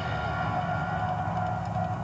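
Man-made volcano attraction erupting: a steady deep rumble with a constant held tone above it.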